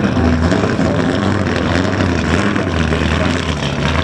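A car engine running steadily at low revs, a deep even drone over a haze of background noise.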